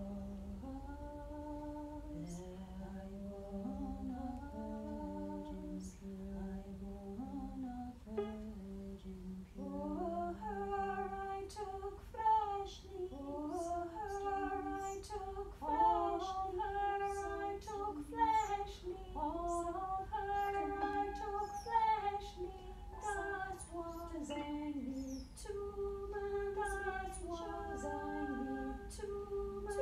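A woman singing unaccompanied: slow, low held notes at first, then from about ten seconds in a higher line with sliding, wavering pitch, over faint scattered clicks.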